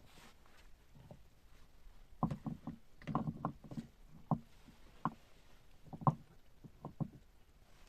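A series of irregular short knocks and clicks, about a dozen, beginning about two seconds in and ending shortly before the end.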